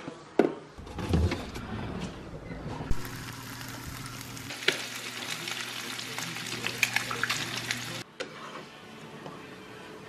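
Eggs frying in a pan on the stove: a dense crackling sizzle full of small pops, after a few knocks at the start. The sizzle cuts off suddenly about eight seconds in, leaving a softer steady hiss.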